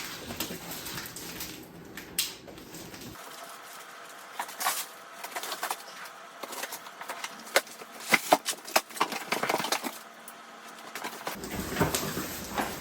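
Cardboard box being opened and its contents handled: scattered crinkles, scrapes and taps of cardboard and packaging, busiest about eight to ten seconds in.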